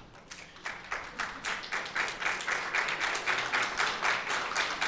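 Audience applauding, the clapping building up over the first second and a half and then holding steady.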